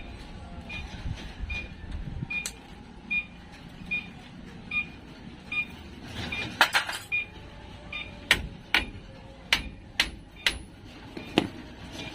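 Metal parts and hand tools clinking and knocking while a brake caliper is worked off its mounting. There is a cluster of clinks about halfway through, then a string of single sharp metallic taps roughly half a second to a second apart. A faint short high chirp repeats about every 0.8 s through the first half.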